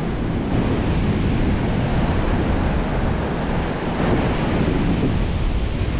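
Surf breaking and washing up a sandy beach in steady noise, with gusty wind buffeting the microphone as a heavy low rumble.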